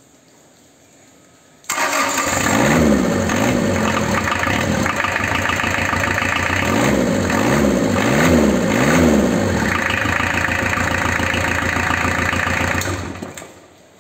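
Kubota V1405 four-cylinder diesel engine starting about two seconds in and catching at once, then running smoothly, its revs rising and falling several times. It is shut off and winds down near the end.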